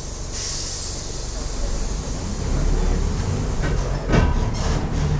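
Mercedes-Benz OF 1418 bus's diesel engine running and getting louder from about two seconds in as it pulls. A hiss of air cuts off just after the start, and there is a short rattling knock about four seconds in.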